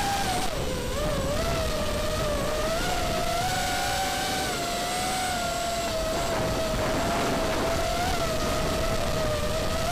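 FPV racing quadcopter's brushless motors and propellers whining, the pitch wavering up and down with the throttle as it flies.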